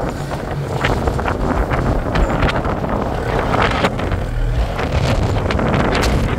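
Wind buffeting the microphone on board a ship, over a steady low rumble, with scattered short knocks and clatters.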